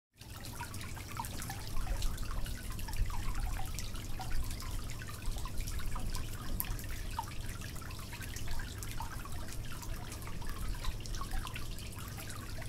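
Water-leak sound effect: water dripping irregularly, many small plinks of drops falling into water, several a second, over a steady low hum.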